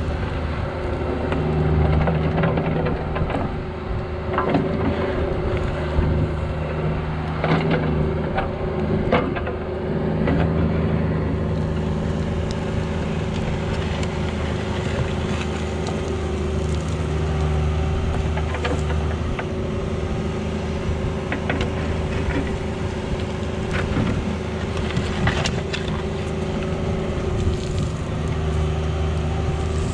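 Cat 304 mini excavator's diesel engine running steadily, its note rising and easing as the hydraulics take load, with occasional sharp knocks from the digging work.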